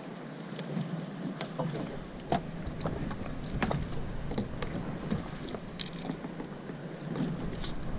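Scattered small clicks and knocks from fishing tackle being handled while a hooked fish is reeled in on a rod and a landing net is brought to the rail, over a steady low hum.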